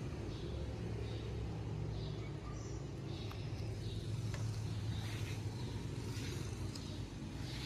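Steady low hum and rumble of background noise, unchanging throughout, with a few faint higher sounds at times.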